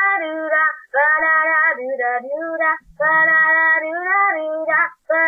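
A high voice singing long held notes, unaccompanied, in about three phrases with short breaks between them.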